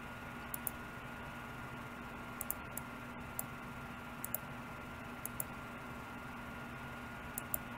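Computer mouse button clicks: about six quick pairs of sharp clicks at irregular intervals of one to two seconds, over a faint steady electrical hum.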